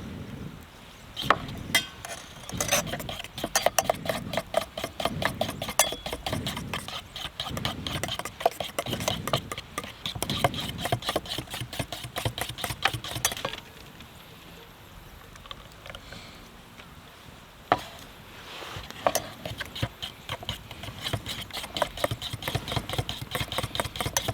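Rapid stirring or whisking in a metal bowl or pot, with fast, regular scraping strokes. It comes in two long bouts, with a pause of a few seconds in the middle broken by a couple of single knocks.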